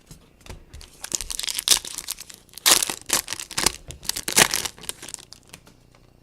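A foil trading-card pack wrapper being torn open and crinkled, in several bursts of tearing and crackling, with the loudest around the middle, then fading near the end.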